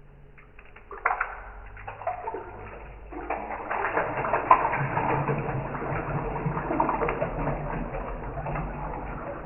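Water pouring, played back slowed down so that it sounds strange and low-pitched. It starts about a second in and becomes a full, continuous pour from about three seconds in.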